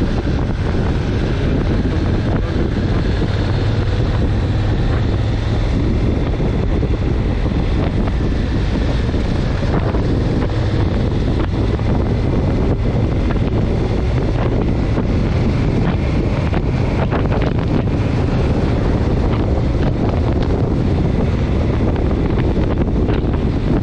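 Steady, loud wind buffeting the microphone of a handlebar-mounted camera while riding, with a low rumble beneath it.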